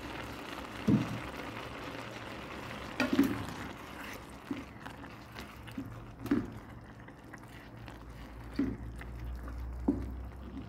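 Minced chicken mixture simmering in broth in a pan, a steady bubbling hiss, while a wooden spatula stirs it, making irregular soft knocks and scrapes against the pan every second or two.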